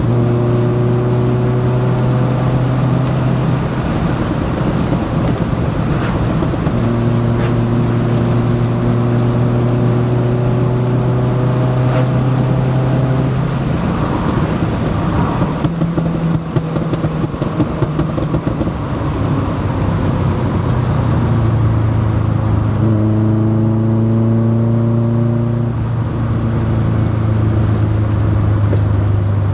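Naturally aspirated VW 2.0 16-valve ABF four-cylinder with individual throttle bodies and a Supersprint 4-2-1 exhaust, heard from inside the car's cabin on the move. The engine note holds or climbs slowly in long stretches and breaks off and restarts at a new pitch several times.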